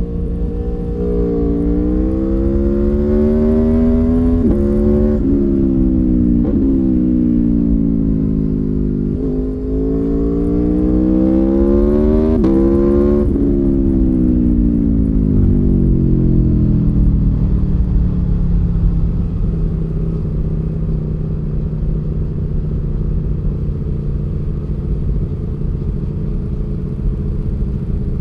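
Aprilia Tuono V4 1100 Factory's V4 engine heard onboard while riding. In the first half the engine climbs and falls in pitch under throttle, with several sudden steps at gear changes. After that it eases off and runs at a steady, even pitch. Wind and road rumble sit underneath.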